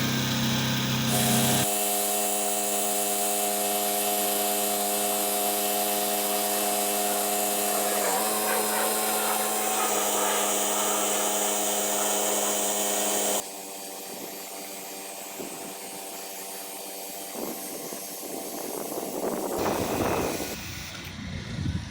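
Pressure washer running steadily, its motor tone under a hiss of spraying water. The sound changes abruptly a few times and is quieter from about halfway through.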